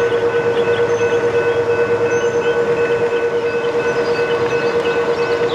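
Grade-crossing warning bell ringing in a rapid, steady pulse as a freight train of covered hoppers rolls by, with birds chirping over it.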